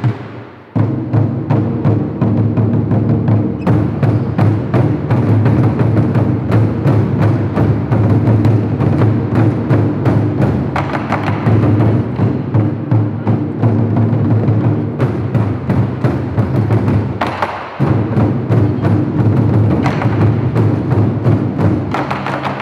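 Ensemble of Japanese taiko drums being played: rapid, continuous strikes on large barrel drums. The playing begins in earnest under a second in and pauses briefly about 18 seconds in before resuming.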